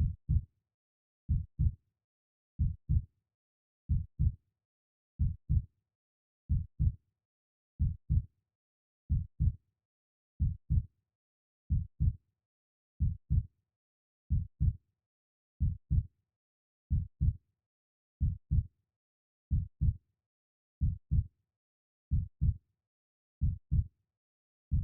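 Heartbeat sound: a steady double thump, lub-dub, repeating about every 1.3 seconds, deep in pitch, with silence between the beats.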